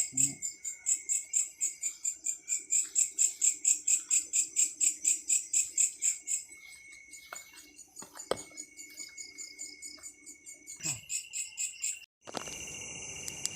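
Night insects chirping in a fast, even rhythm of about four or five high chirps a second, which fade about six seconds in. After a sudden break near the end, a steadier high trill takes over.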